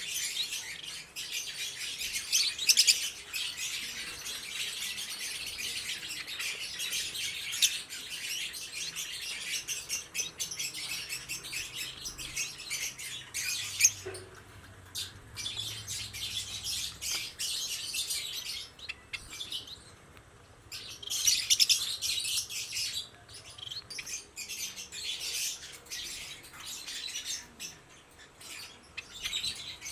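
Many small cage birds in an aviary chirping and calling at once, a dense high-pitched twittering that thins out briefly twice and swells again a little after the middle.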